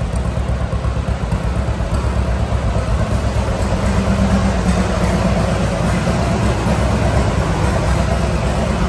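Engine idling steadily, a low rumble with a rapid, even pulse.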